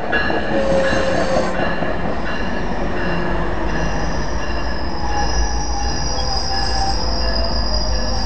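Metrolink bilevel passenger train rolling past, its steel wheels squealing on the rails in high, steady tones that grow stronger in the second half. A low rumble builds underneath after about five seconds.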